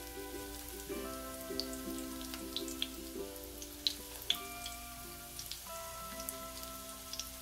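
Breaded chicken cutlets shallow-frying in hot olive oil, the oil crackling and spitting in scattered pops, a few sharper ones about four seconds in. Soft background music with held notes plays underneath.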